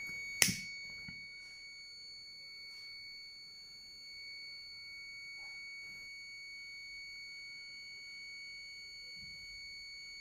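Multimeter continuity buzzer holding one steady high-pitched beep, meaning the geyser's thermal cut-out contacts are still closed while its sensor is being heated. A sharp click about half a second in as a lighter is struck.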